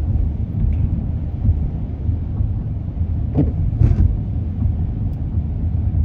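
Steady low road and engine rumble heard from inside the cabin of a moving car.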